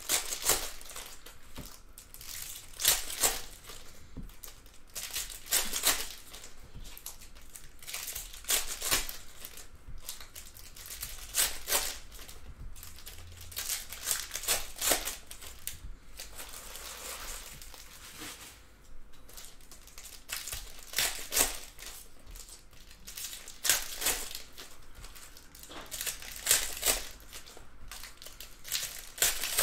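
Red foil wrappers of 2019 Panini Prizm Football hobby packs being torn open and crumpled by hand: a run of short, sharp crinkles and rips every second or two.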